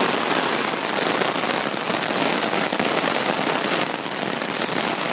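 Heavy thunderstorm rain pouring down, a steady dense hiss.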